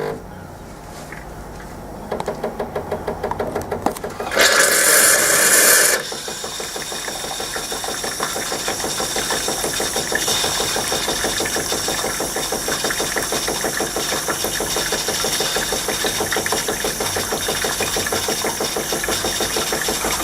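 Jura Giga X7 coffee machine running its milk-system rinse cycle, its pump working with a fast, even pulsing. About four seconds in there is a loud hiss lasting a second or two, then the pulsing pump runs on steadily with a high whine as water is drawn through the milk system.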